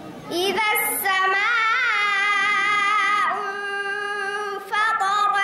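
A girl's voice chanting Qur'anic recitation in the melodic tajwid style, drawing out long notes with ornamental turns. One long note wavers, glides down about three seconds in and is held steady, and a new phrase begins near the end.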